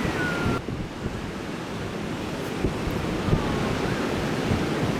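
Ocean waves washing onto the beach, with wind rumbling on the microphone.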